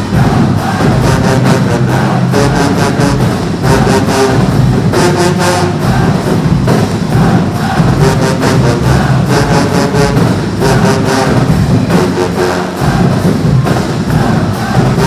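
Marching band playing loudly, full brass over a steady drum beat.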